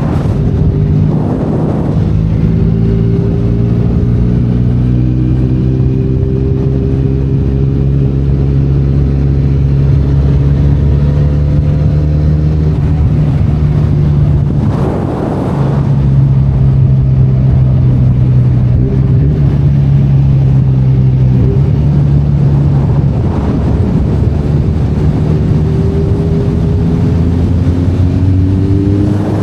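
Benelli Leoncino 500 Trail motorcycle's 500 cc parallel-twin engine running under load at fairly steady revs. The note breaks briefly about a second in and again about halfway through, and the revs rise near the end.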